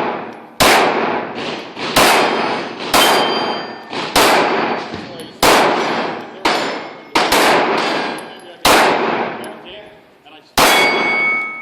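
A 9mm pistol firing about nine shots at a steady pace, roughly one every second, each followed by the ring of a struck steel target plate.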